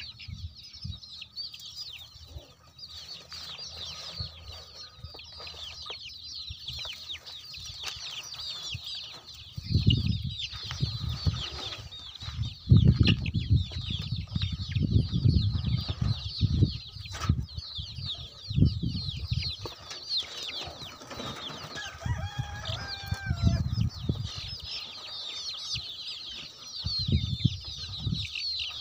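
A flock of young country chickens peeping constantly in short, high, falling chirps, with clucking, and one longer pitched call about three quarters of the way through. Bursts of low rumbling come and go from about ten seconds in.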